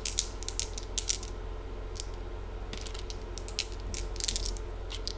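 Small dice clicking against each other as they are gathered up and shaken in a hand: irregular runs of sharp little clicks.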